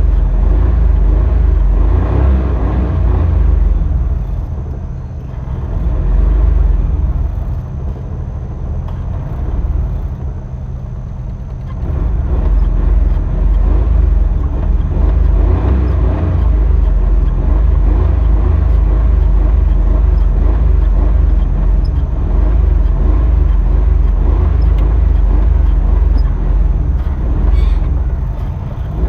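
Old Maruti car's engine revving: it eases down for several seconds, is revved up again about twelve seconds in, and then holds steady.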